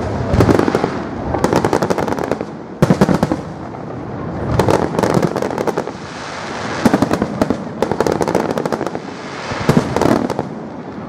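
Fireworks salute going off: deep booms of shells bursting, followed by clusters of rapid, dense crackling pops, repeating every second or two.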